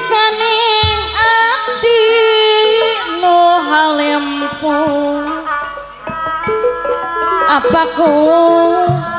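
Sundanese gamelan (karawitan) music accompanying a seni ibing dance: a melody that slides and wavers between notes over many sustained pitched notes, with scattered drum strokes.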